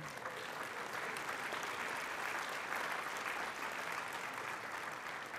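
Audience applauding steadily, the clapping starting to thin out near the end.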